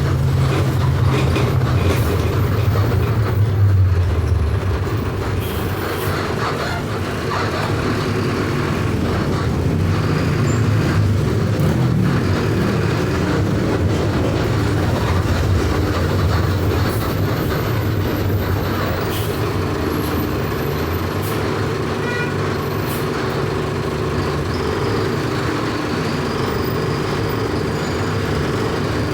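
Mercedes-Benz OF 1519 bus's four-cylinder electronic diesel engine running while driving, louder for the first few seconds and easing off about five seconds in, then running steadily, with a few light clicks and rattles.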